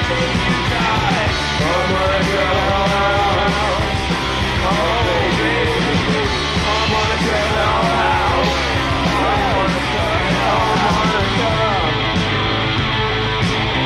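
Live punk-rock band playing loudly, with a lead line that bends and wavers in pitch over the full band.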